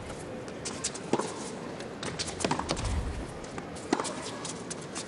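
Tennis ball struck back and forth by rackets in a baseline rally, about three sharp hits roughly a second and a half apart, with lighter clicks of shoes on the hard court between them.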